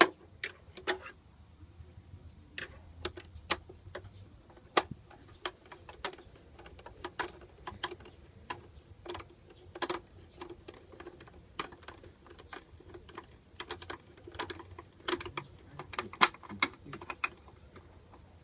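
Irregular clicks and light knocks of small shredder parts and tools being handled, one every half second to second.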